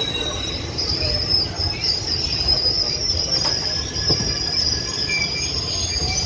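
Train wheels squealing against the rails as the coaches move slowly: a steady high-pitched squeal over a low rumble.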